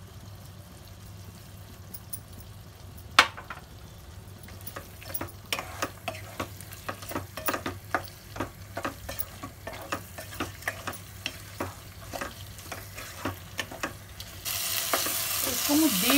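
Spoon stirring a chicken korma masala in a cooking pan, with repeated short clinks and scrapes against the pan and one sharp knock about three seconds in. Near the end a loud, steady frying sizzle sets in.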